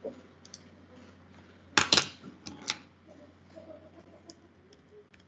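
Computer keyboard keystrokes and mouse clicks, with a loud cluster of clicks about two seconds in and lighter scattered taps after, over a faint steady hum.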